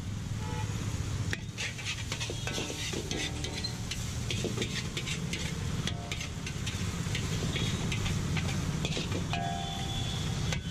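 Metal spatula scraping and clinking against a large iron wok as chicken pieces are stir-fried and sizzle, over a steady low rumble.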